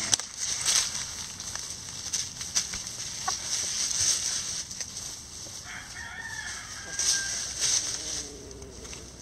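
Free-range hens scratching and pecking through dry pine straw and leaves: an uneven rustle of short crackling strokes, with a short cluck about three seconds in. Just before six seconds in, a rooster crows once, off in the distance and fainter than the scratching.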